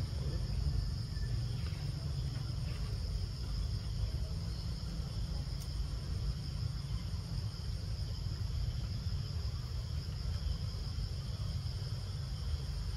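Steady high-pitched insect chorus, unbroken, over a low steady rumble.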